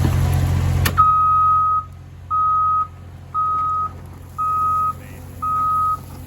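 A heavy diesel engine runs loudly, then drops off about a second in. A backup alarm on the heavy equipment then beeps steadily, a single high tone about once a second, five times.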